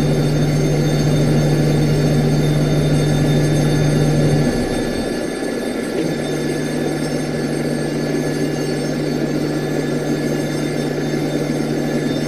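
Steady drone of machinery at the nose of a Boeing 777-300ER waiting for pushback, with a strong low hum and several high, steady whining tones. About four and a half seconds in the hum drops out, and it comes back weaker a second and a half later.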